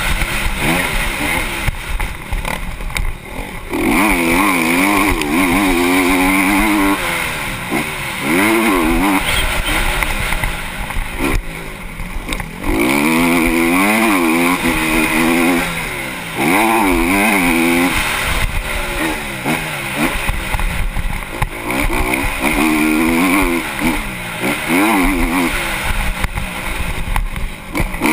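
Honda CRF250R motocross bike's four-stroke single-cylinder engine revving hard, its pitch climbing and falling again and again as the rider shifts and rolls off the throttle every several seconds. Wind rushes over a helmet-mounted microphone.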